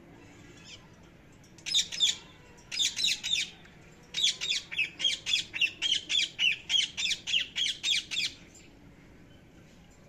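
Rose-ringed (Indian ringneck) parakeets squawking: two short bouts of high calls, then a quick run of about fourteen repeated high squawks over some four seconds.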